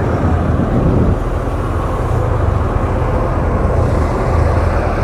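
Motorcycle riding at speed: wind rushing loudly over a helmet-mounted camera's microphone, over a steady low rumble.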